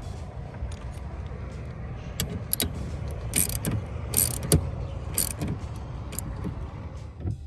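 Car windshield wipers running, the wiper motor and linkage sweeping the arms back and forth with irregular clicks and knocks over a low steady hum. The wiper arm works again with its retaining bolt just tightened, so a loose arm bolt was the fault.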